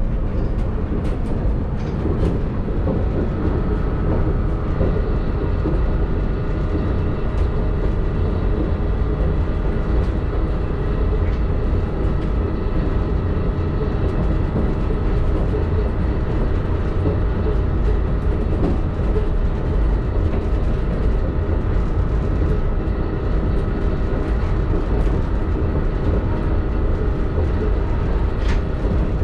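Chiba Urban Monorail 1000 Series suspended monorail car running steadily between stations, heard from on board: a continuous low rumble with several steady humming tones over it, and a few faint clicks.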